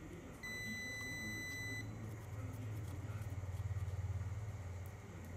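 A single electronic beep, one steady high tone lasting about a second and a half, over a continuous low hum that grows louder near the middle.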